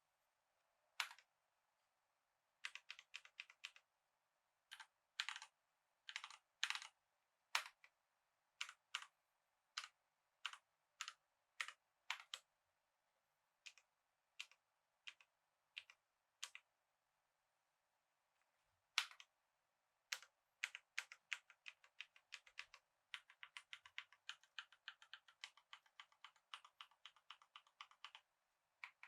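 Typing on a COX CK87 tenkeyless mechanical keyboard with tactile Gateron brown switches: scattered single keystrokes and short clusters, then a fast, steady run of typing near the end.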